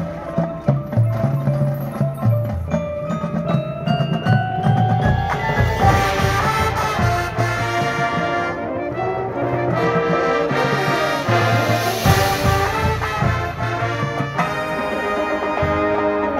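Marching band playing its field show: brass over front-ensemble mallet percussion (marimba) and drums, with a rising run of notes in the first few seconds.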